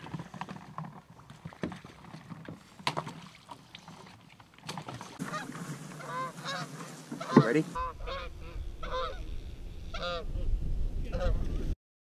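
Paddle knocks and water sounds from a small boat for the first few seconds, then a flock of geese honking over and over as they fly in, the calls getting louder, with a low rumble under them for the last few seconds.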